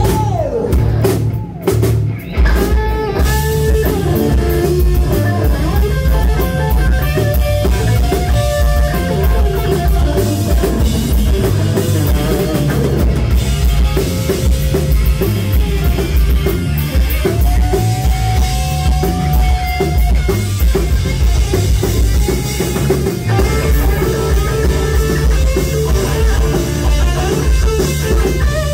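Live rock band playing: distorted electric guitars, bass guitar and drum kit, with a lead line of long held notes that bend in pitch. The band cuts out briefly about two seconds in, then comes straight back in.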